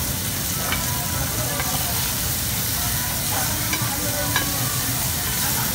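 Beef sizzling on a hot Korean barbecue grill pan as metal tongs turn the pieces, with a few light clicks of the tongs against the pan.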